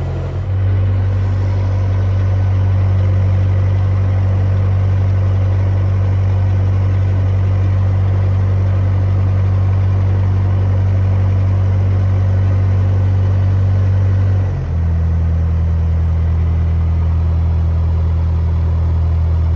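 Narrowboat's diesel engine running at steady cruising revs, a loud, even low drone; its note shifts slightly about fifteen seconds in.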